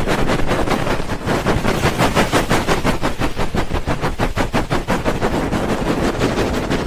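Hands rubbing and patting a binaural microphone's ears in the fast 'helicopter' ASMR trigger: an even beat of muffled whooshing strokes, several a second, close and loud.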